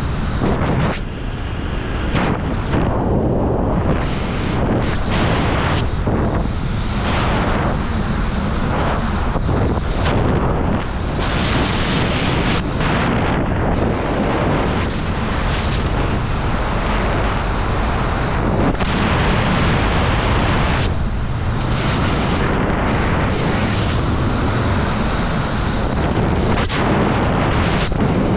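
Wind rushing over the microphone of a skydiver descending under an open parachute canopy, a steady low rushing that swells and dips in irregular gusts.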